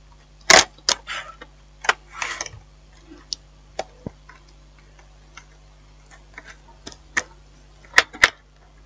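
Irregular light clicks and taps from a Dell Latitude D620 laptop's plastic and metal parts as its keyboard ribbon cable is handled and fitted, with two sharper clicks close together near the end.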